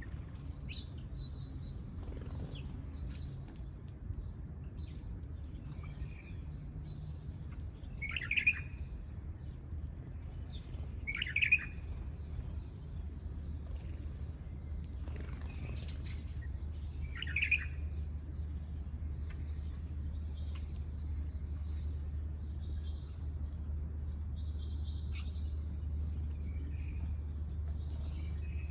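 Sparrows chirping: scattered short chirps throughout, with three louder ones about eight, eleven and seventeen seconds in, over a steady low rumble.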